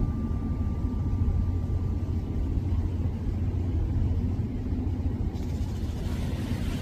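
Steady low rumble, with the last notes of background music fading out in the first couple of seconds.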